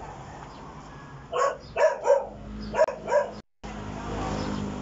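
A dog barking five short times, in quick pairs, from about a second and a half in; the sound drops out for a moment just after.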